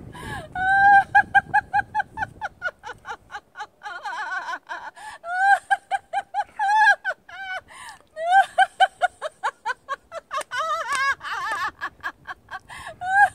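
A woman laughing on and on in quick, high-pitched pulses, about five a second, with a couple of short breaks: deliberate laughter-yoga laughter. Wind rumbles on the microphone during the first few seconds.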